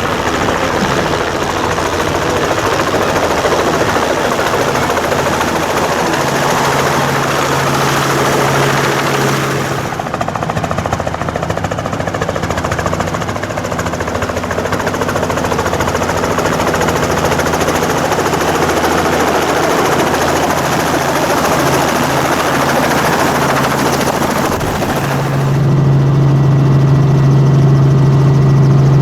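Helicopter in flight heard from on board: steady engine and rotor noise with a fast, rapid beat from the blades. A low drone in it grows louder about 25 seconds in.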